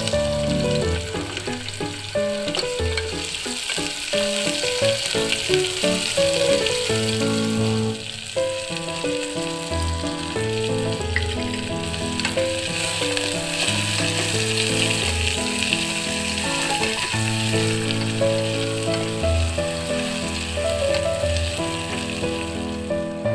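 Food sizzling steadily as it fries in hot oil in a pan, with background music playing over it.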